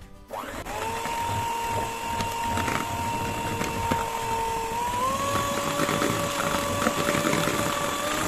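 Electric hand mixer switched on just after the start, whirring steadily as its twin beaters whip eggs and powdered sugar in a plastic bowl. Its whine steps up in pitch about five seconds in.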